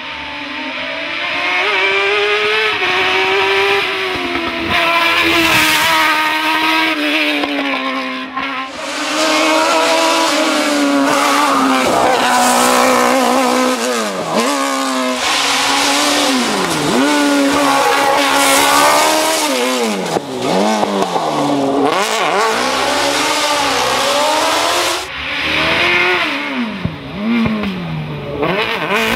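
Formula Outeda MK-IV single-seater racing car's engine revving hard through the gears, its pitch climbing with each gear and dropping sharply on lift-off and downshifts for the bends. The engine is heard over several passes, with a few abrupt breaks where the sound is cut.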